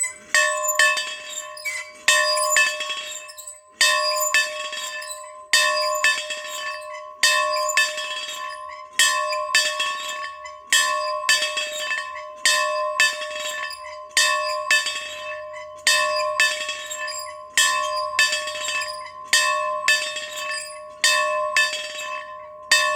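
A bell rung over and over at a steady pace, a little faster than once a second. Each stroke rings on into the next, so the bell never falls quiet between strokes.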